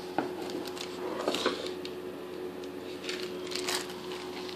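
Hands handling small objects on a wooden tabletop: a vinyl mini figure set down with a light tap, then a cardboard blind box picked up with scraping and rustling, in several short bursts of clicks and rustles.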